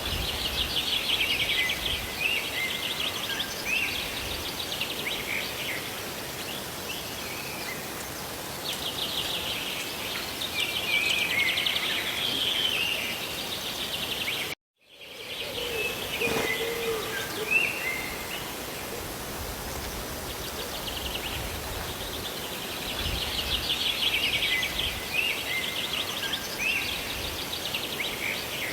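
Steady hiss of rain and falling water with a songbird singing bursts of rapid trills and chirps several times. The sound cuts out completely for a moment about halfway through.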